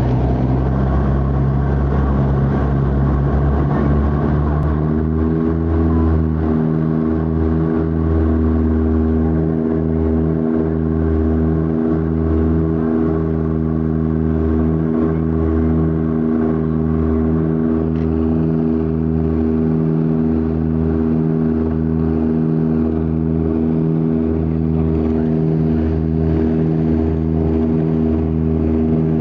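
Dash 8 turboprop engine and propeller drone heard from inside the passenger cabin, a steady set of tones with a slow, uneven throbbing in the low end. About five seconds in the tones shift and settle into a cleaner, steadier pitch.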